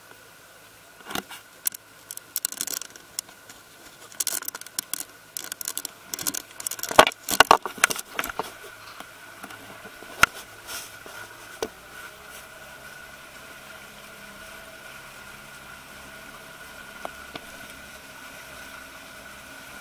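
Small ferry boat's engine running under way. A run of sharp knocks and clatters fills the first half, then the engine settles into a steady hum.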